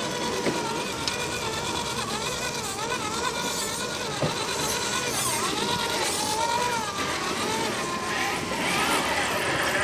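Electric motor of a radio-controlled crawler whining, its pitch rising and falling as the throttle is worked.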